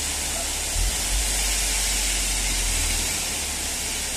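S1 aggregate sliding and pouring off the tipped bed of a FAW J6P-350 dump truck in a steady hissing rush, over a low rumble from the running truck.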